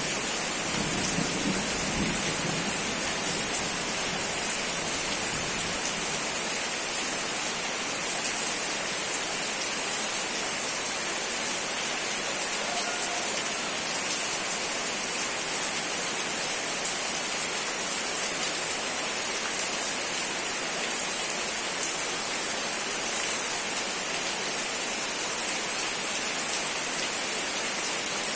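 Steady heavy rain falling, an even hiss of water on surfaces. A low rumble of thunder fades out over the first couple of seconds.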